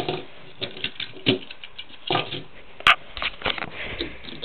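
Small diecast toy cars clicking and rattling as they are picked up and set down by hand: a string of irregular light clicks, with one sharper click about three seconds in.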